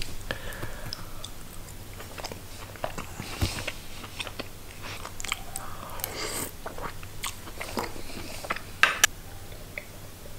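Close-up chewing of a mouthful of canned sprats in oil, with many small wet clicks from the mouth. Two sharp clicks about a second before the end.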